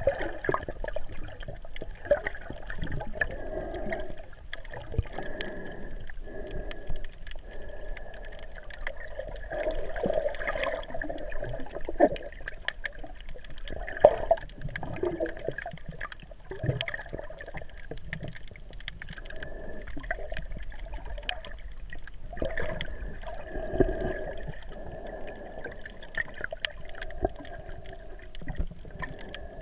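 Muffled underwater sound picked up by a GoPro Hero 3 inside its waterproof housing while snorkeling: a wavering watery wash with many scattered sharp clicks and crackles.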